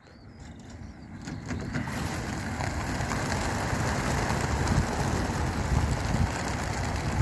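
A large flock of racing pigeons taking off together from a transport trailer at a race release, their massed wingbeats making a dense rush of wing noise that builds over the first couple of seconds and then holds steady.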